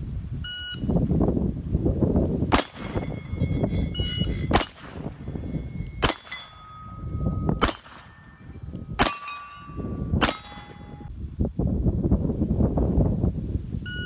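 Six revolver shots, about one and a half seconds apart, each followed by the ring of a hit steel target plate.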